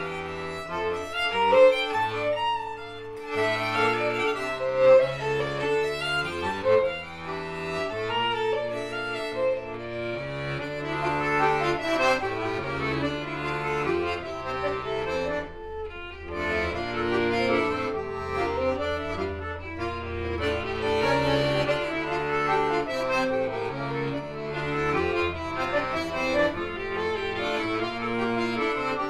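Concertina and violin playing a European folk dance tune together, with short breaks between phrases about 3 and 16 seconds in.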